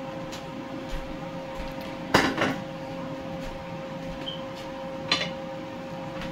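Kitchen clatter of cookware and utensils: a loud knock with a brief ring about two seconds in, a second sharp knock about five seconds in and a few faint taps, over a steady hum.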